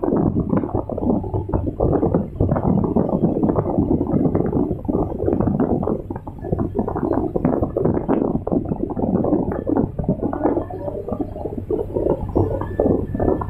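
Excavator, heard from inside its cab: the diesel engine and hydraulics rumble densely under load as the steel bucket rakes and scoops gravel. A thin steady whine comes in near the end.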